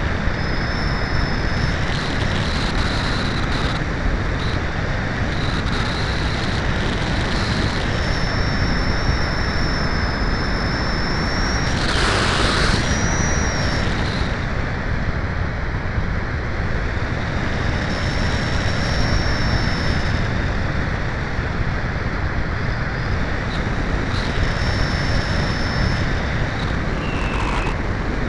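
Rushing wind over the onboard keychain camera's microphone of a Cularis RC glider in gliding flight, steady and loud. Thin high whines come and go, and a brief louder gust of noise comes about halfway through.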